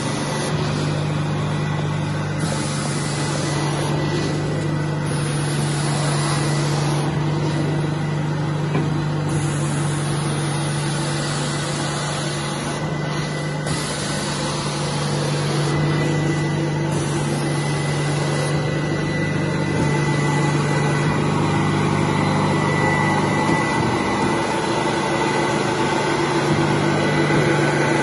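Portable carpet steam-cleaning (hot-water extraction) machine running steadily, its vacuum motors and solution pump giving a steady low hum with a faint high whine over a rushing hiss, while the wand sprays and sucks water back up from the carpet.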